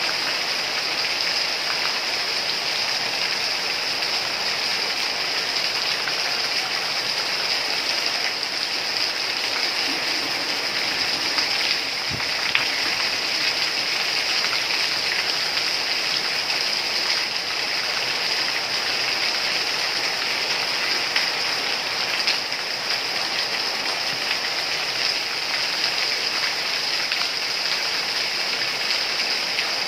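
Steady rain: an even, dense hiss of falling rain with scattered drop taps and one louder tap about twelve seconds in.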